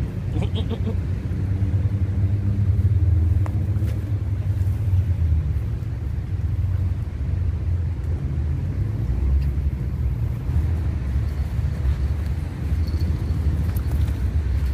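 Steady low rumble of road traffic, with an engine hum that fades out about four seconds in.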